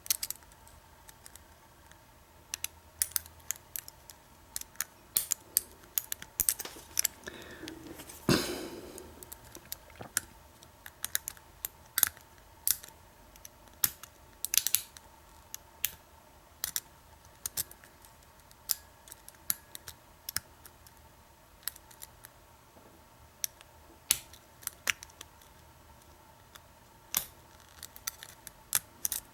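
Lock pick and tension wrench working the pin stack of an American 1100 padlock: scattered sharp metal clicks and ticks as pins are set, with one louder knock and brief rattle about eight seconds in.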